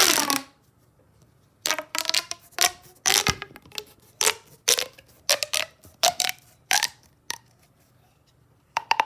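Plastic pop tubes being stretched and squashed, making a run of short, sharp crinkly pops, about a dozen in quick succession, with a pause before a couple more near the end.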